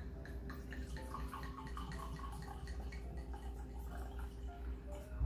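Red wine poured from a glass bottle into a stemmed wine glass: a soft, irregular gurgle and trickle of liquid. A brief knock near the end.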